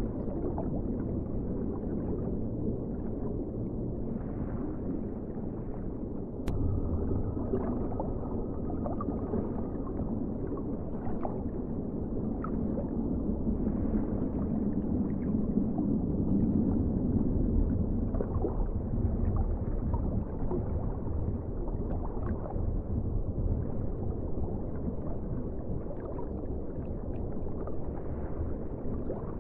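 Underwater ocean ambience: a steady deep rumble of water with small crackles and bubbling. A sharp click about six seconds in, after which it grows a little louder.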